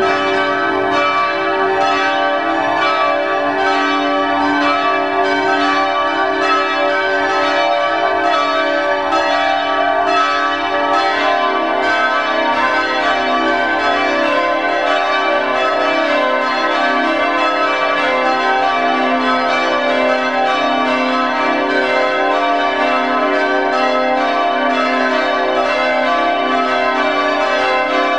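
Swinging church bell, bell no. 4 of the former Christophoruskirche, ringing steadily with struck tones that overlap and keep sounding between strokes.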